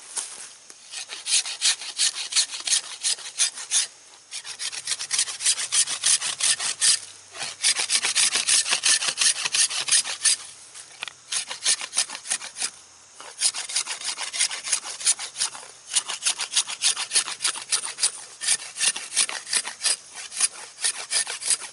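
The 90-degree spine of a blade scraping bark off a green wooden shaft in quick, repeated rasping strokes, in runs broken by several brief pauses.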